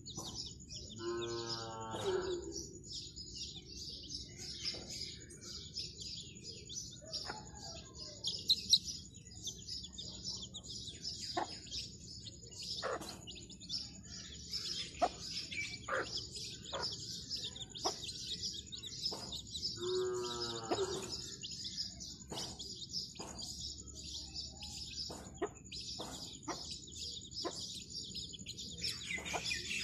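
A brood of young chicks peeping continuously in high, rapid chirps. A hen gives a short, low call twice: once near the start and again about two-thirds of the way through.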